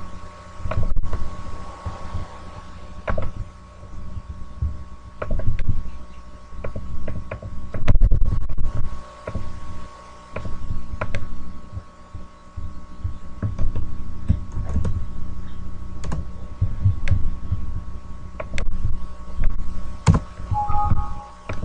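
A steady electrical hum under irregular low thuds and scattered sharp clicks, the sound of a desk microphone picking up handling and computer use. Near the end comes a short two-note tone.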